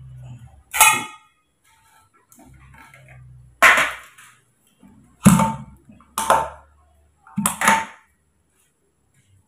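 Sharp metal clanks, five in about seven seconds, the first ringing briefly: a stainless-steel thermos flask, its steel cup and a spoon knocking against a metal tray and a glass while milk is being made up.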